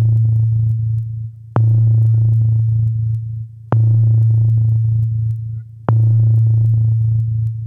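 Synthesized electronic tone: a low humming note that starts abruptly four times, about two seconds apart, fading a little each time, with a fast even pulse running through it.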